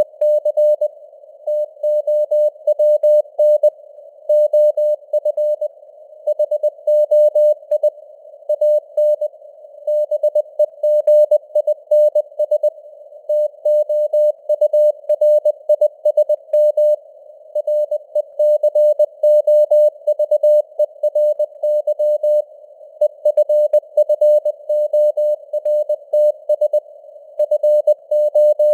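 Morse code at 20 words per minute: a single mid-pitched tone keyed on and off in dots and dashes, grouped into letters and words with short pauses. A soft band of simulated radio hiss surrounds the tone, and the signal strength varies (QSB).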